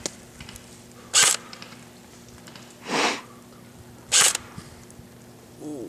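M4-style airsoft rifle fired in single shots: two short, sharp shots about three seconds apart, with a softer, duller puff between them and a brief grunt-like voice sound near the end.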